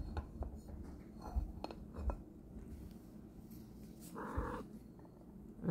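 A young kitten gives one short, faint mew about four seconds in, with soft low bumps of handling around it.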